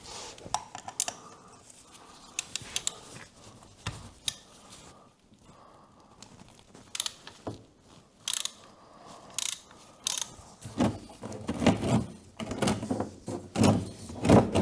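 Hand ratchet wrench clicking as a fastener is turned. Scattered clicks at first, then quick runs of clicking over the last few seconds.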